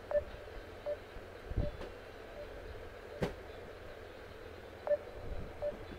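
Phone voice call connecting tone: short beeps, three in a row about three-quarters of a second apart, repeated once, over a low background hum. A single sharp click sounds a little past halfway.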